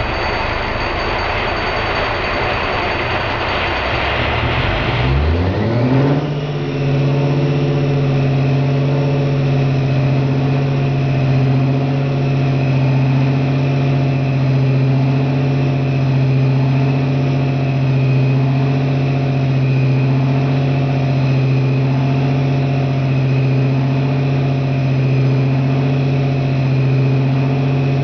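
Napier T9-29 Baby Deltic nine-cylinder two-stroke opposed-piston diesel engine starting. A rough rushing noise lasts about five seconds, then the engine catches and its pitch climbs quickly before it settles into a steady idle.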